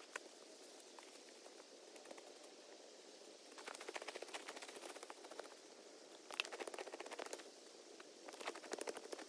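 A long-handled hand tool scraping and digging through loose, stony soil, in three bursts of rapid clicking and scraping: the first about a third of the way in, the next a little past halfway, the last near the end.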